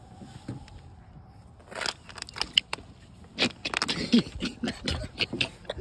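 Plastic sunscreen tube squeezed out, giving an irregular run of sputtering squirts and clicks that starts about two seconds in.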